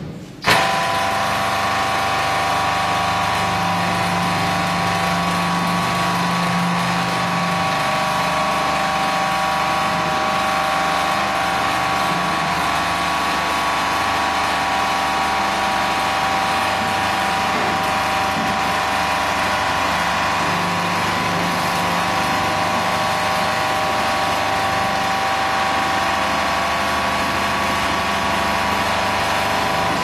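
Welding machine for solar water heater inner tanks running, a steady electrical buzz with an even hum that comes in about half a second in and holds without change.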